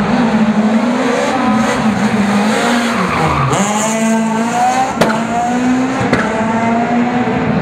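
Škoda Fabia S2000 rally car's four-cylinder engine revving hard, its pitch climbing and dropping again and again as it works through the gears, with a deep drop about three seconds in. Tyres squeal briefly just after, and a sharp crack sounds about five seconds in.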